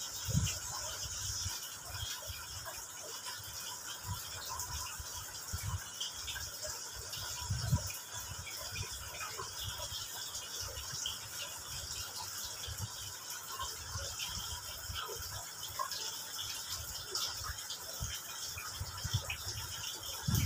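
Steady background hiss with irregular low thumps and bumps from a handheld phone being moved about, and scattered faint small ticks.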